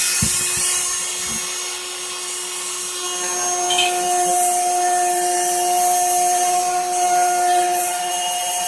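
Dremel rotary tool running at a steady high speed, its small cutting bit carving into a wooden walking stick: a constant whine with a second, higher tone coming in about three seconds in as the bit bears into the wood.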